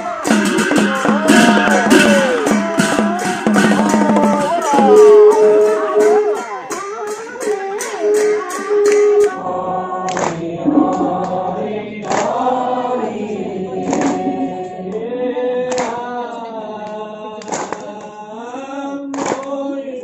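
A group singing a devotional chant (naam). For the first half it comes with dense, fast percussion; after a cut the singing goes slower, with a sharp percussion stroke about every two seconds.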